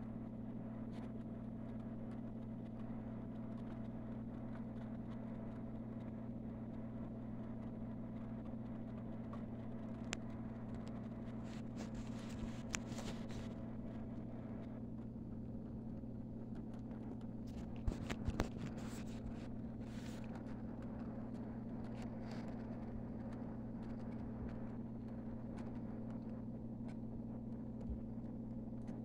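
HO-scale McKinley Explorer model train running past close by, with a steady electric hum throughout and a few short clicks and rattles from the running gear about 12 and 18 seconds in.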